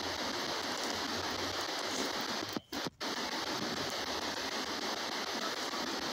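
S-Box spirit-box ghost scanner sweeping through radio stations, set to speed 4 in reverse, giving a steady hiss of radio static. The static cuts out twice for a split second near the middle.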